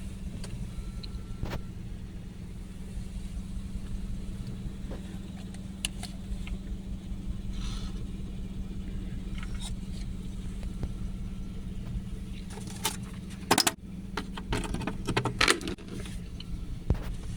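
A steady low hum throughout, with a run of sharp clicks and metallic rattling between about twelve and sixteen seconds in.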